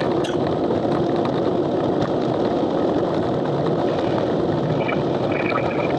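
Steady road and wind noise inside a car's cabin at highway speed, with a few faint short high-pitched tones near the end.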